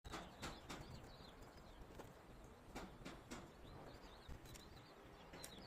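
Faint, sparse knocks with birds chirping in the background.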